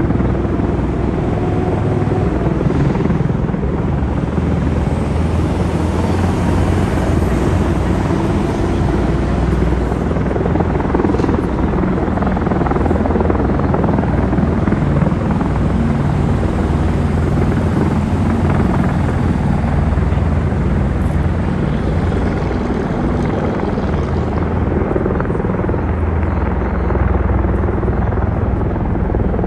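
MV-22 Osprey tiltrotor hovering low and settling to land with its twin proprotors in helicopter mode: loud, steady, deep rotor noise.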